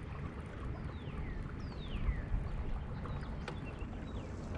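Two descending whistled bird calls, about one and two seconds in, over a steady low background rumble.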